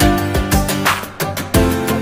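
Upbeat background music with a steady drum beat and sustained pitched instrument notes.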